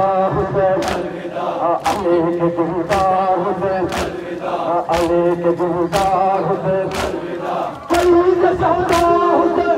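A crowd of men chanting a mourning lament (nauha) together, with a sharp slap in unison about once a second from chest-beating (matam) keeping time with the chant.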